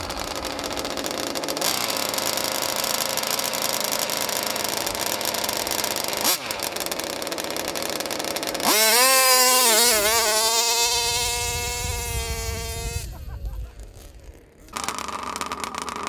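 Gasoline RC car's small two-stroke engine at full throttle: a loud, high buzzing note starts suddenly a little past halfway, wavers in pitch, then holds steady as it fades away and cuts off. Before it there is a steady noisy background.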